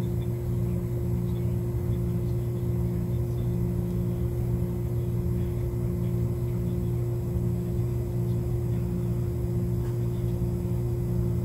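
A steady low hum with constant tones, plus a fainter tone that pulses on and off about once a second; no distinct events.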